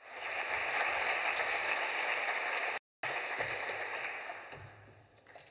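Audience applauding, cutting in abruptly, dropping out for an instant about three seconds in, then fading away near the end.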